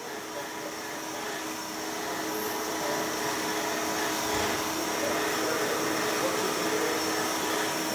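Compressed air hissing steadily from an air chuck as it pressurises an Amadaxtreme remote-reservoir shock absorber through its Schrader valve, growing a little louder over the first few seconds and then holding steady.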